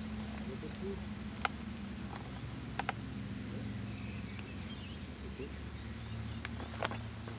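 Steady, unchanging low drone of an idling nitro RC car engine, with a few sharp clicks and faint bird chirps.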